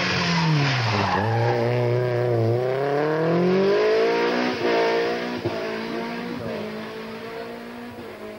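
Rally car engine revving hard as the car comes through a hairpin and past close by: the pitch drops, then climbs as it accelerates, loudest about four to five seconds in, then fading as the car drives away.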